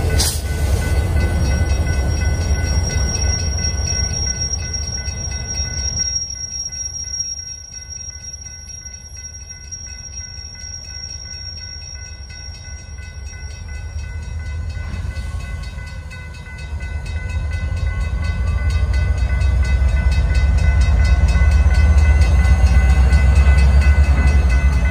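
CSX freight diesel locomotives working a local train: a heavy low engine rumble with a thin, steady high-pitched squeal over it through the first half. The rumble eases off in the middle, then grows steadily louder toward the end as the lead locomotive works toward the camera.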